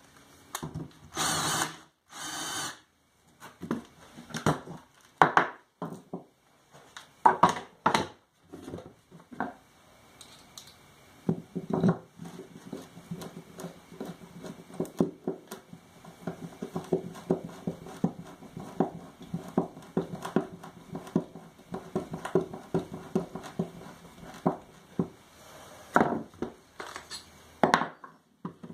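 Hand-held drill with a plug-cutter bit running and cutting into hardwood, chattering steadily for about fifteen seconds. Knocks and clatter from handling the work come before it and near the end.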